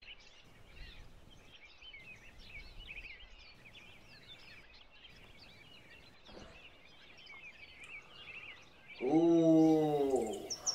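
Jungle ambience: a steady chatter of small bird chirps, then about nine seconds in a loud animal call, held for about a second and a half and falling in pitch at its end, followed near the end by a fast high-pitched bird trill.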